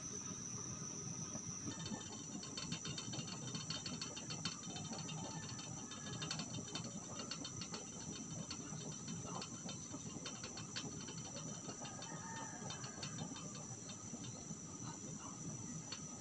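Chicken soup boiling hard in a covered stainless steel pot, making a steady low bubbling. From about two seconds in, fast, fine ticking and crackling joins it.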